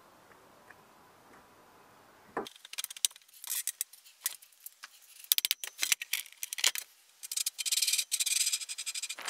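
Near silence, then from about two and a half seconds in a busy run of rubbing, scraping and sharp clicks as drill press parts are handled: the spindle pulley, its shaft and the belt housing.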